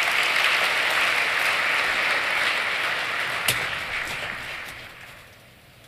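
Large audience applauding in a big hall, a dense even clatter of clapping that dies away about five seconds in.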